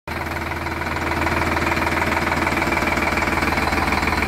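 Indo Farm 3048 DI tractor's diesel engine running steadily at idle, a little louder after the first second.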